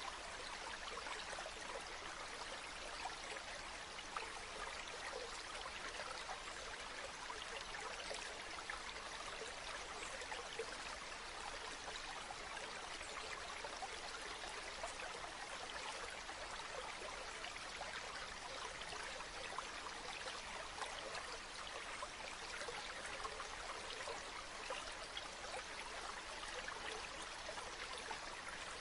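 A stream of running water flowing steadily, an even rush with many small splashes and gurgles through it.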